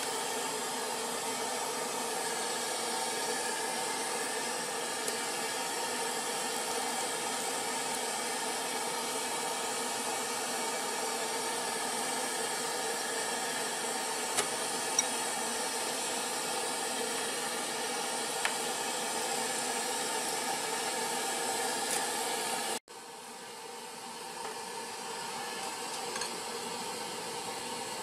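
Steady hiss from the steaming pot of boiling water on a mie ayam noodle cart, with a few faint clicks. Near the end the hiss drops suddenly in level and carries on quieter.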